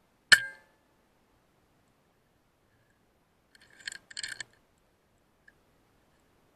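A single sharp rifle shot just after the start, with a short ringing tail. About three and a half seconds later comes a quick run of clicks and rattles.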